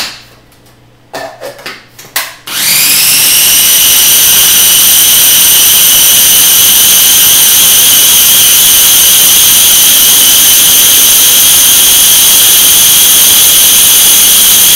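Electric food processor blending a thick tahini and zucchini dressing. After a few clicks, the motor spins up with a rising whine about two and a half seconds in, runs loud and steady, and stops near the end.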